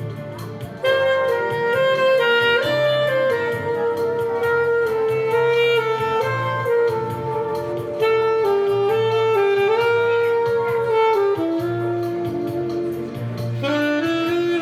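Background music: a jazz tune with a saxophone-like lead melody over a bass line and a steady beat, the lead coming in about a second in.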